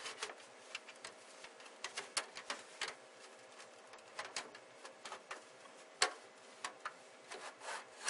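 Metal hard-drive cage on side rails being slid into a steel server case's drive bay: irregular scrapes, rattles and clicks of metal against metal, with a sharp knock about six seconds in.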